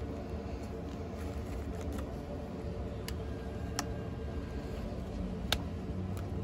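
Handling of cheese slices and a disposable aluminium foil pan: three sharp clicks, the loudest just past halfway, over a steady low hum.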